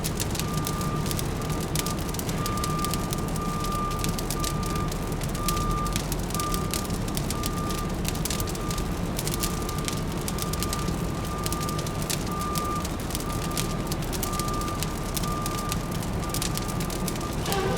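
Fireplace crackling over a steady low hum of city traffic, with a vehicle's reversing alarm beeping about once a second throughout.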